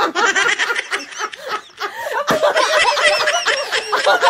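A small group of men and women laughing hard together, in rapid repeated bursts of giggling and laughter.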